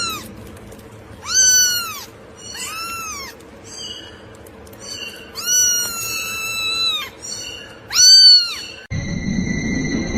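A cat meowing four times in high-pitched, arching calls, the third one long and drawn out. Near the end the meowing stops and a steady high tone with a rushing noise takes over.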